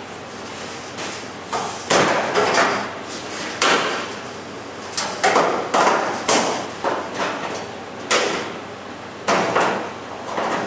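A new sheet-metal deck filler panel on a 1968 Camaro being knocked and pressed down into its seat by hand: a series of sharp, irregular knocks and bangs, sometimes two or three within a second.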